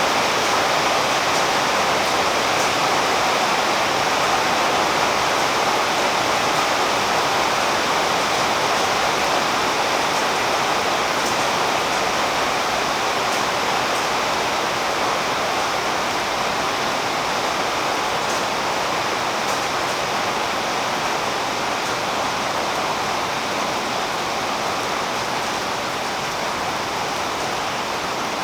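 Steady rain falling on tree foliage: a dense, even hiss with faint scattered drip ticks.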